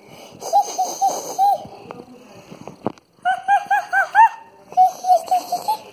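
A child's high voice laughing "ja ja ja" in three quick bouts, each a run of four to six short, even syllables.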